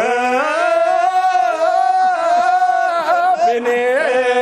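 A voice singing, holding one long high note with slight wavering for a couple of seconds, then dropping into shorter notes near the end.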